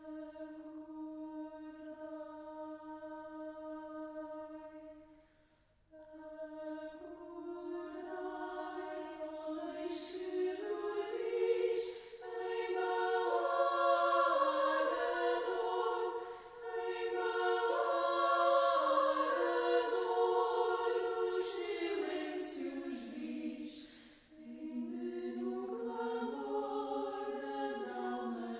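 Mixed chamber choir singing in Portuguese. It opens on one long held note, breaks briefly about five seconds in, then the voices spread into full chords that swell louder in the middle, with short breaths between phrases.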